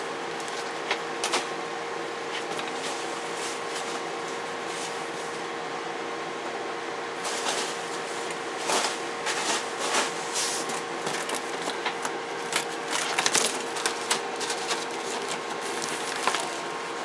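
Packing material being pulled from a cardboard shipping box: irregular rustling, crinkling and light knocks, busiest from about seven seconds in, over a steady hum.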